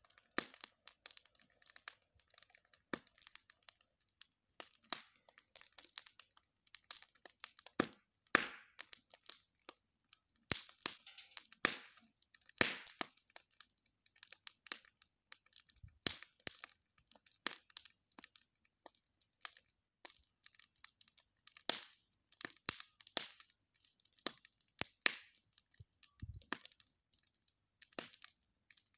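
Wood campfire crackling, with many irregular sharp cracks.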